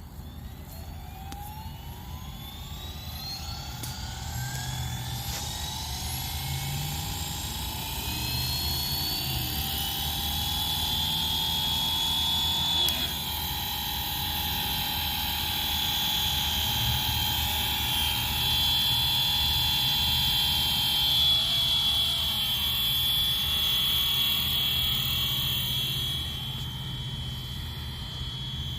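FlyWing FW450 V3 electric RC helicopter spooling up: a high whine from its motor and rotors rises steadily in pitch and loudness for about twelve seconds, then holds nearly steady as it flies.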